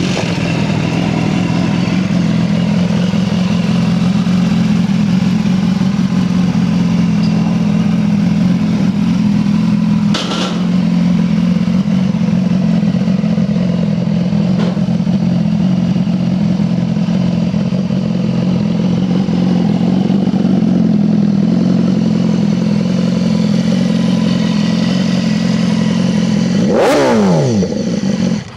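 A 2015 BMW S1000RR's 1000cc inline-four engine idling steadily through an aftermarket Werkes USA slip-on exhaust. Near the end the pitch sweeps briefly downward.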